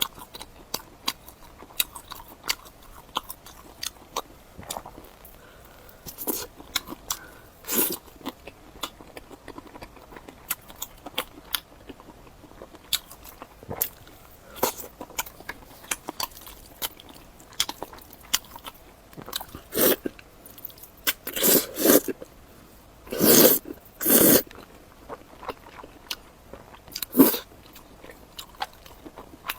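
Close-miked eating: a person biting and chewing food, with many short crunching and wet mouth sounds. A run of louder bites comes about two-thirds of the way through.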